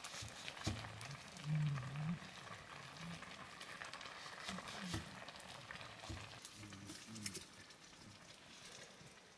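Pork frying in a wok of bubbling fat, a steady faint sizzle. A few short, low voice-like sounds rise over it now and then, the loudest about a second and a half in.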